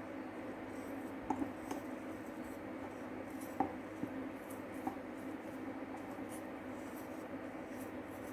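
A steady hum with a few short, light clicks and taps in the first five seconds.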